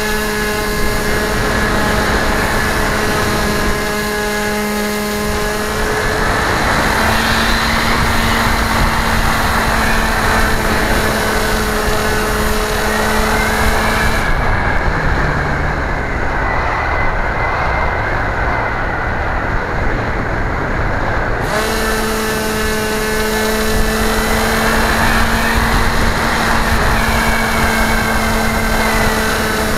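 The motor and propeller of a small radio-controlled aircraft, heard from its onboard camera as a steady buzz with a rushing hiss. About halfway through, the motor slows to a lower pitch and the hiss thins out for several seconds, then it speeds back up.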